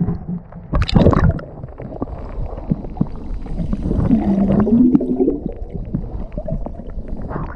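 Water heard through an action camera held underwater: splashing as it goes under, then muffled gurgling and bubbling, with a wavering muffled tone around the middle.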